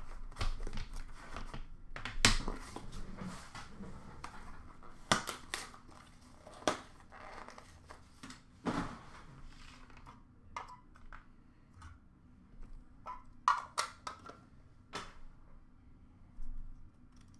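A cardboard box of hockey cards being opened and the cards handled: irregular crinkling, scraping and clicking of card stock and packaging, busy in the first half and sparser later.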